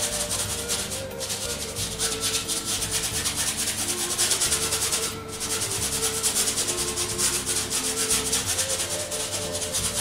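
Stiff flat bristle brush scrubbing paint across a stretched canvas in quick back-and-forth strokes, with brief pauses about a second in and again about five seconds in.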